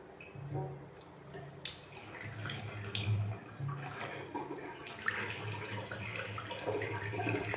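Water running from a single-lever mixer tap into a sink, faint and uneven.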